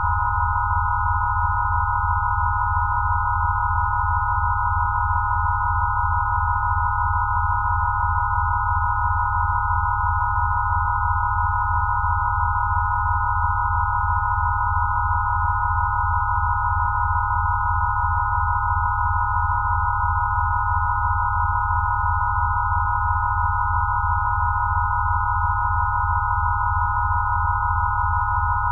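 Electronically generated healing-frequency tones: several steady pure tones layered around 1 kHz over a low tone with a fast, even pulsing, holding unchanged.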